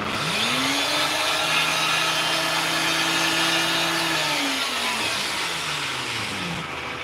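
NutriBullet blender motor starting up, its whine rising in pitch within the first second, running steadily, then slowing and falling in pitch over the last few seconds. The jar is packed with whole mango and pineapple chunks and only a little water, and they are not yet breaking down: the blender is struggling with too dry a load.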